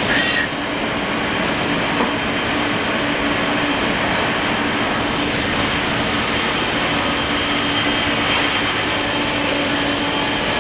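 Citizen Cincom M20 CNC automatic lathe running: a steady mechanical hiss with a low, even hum.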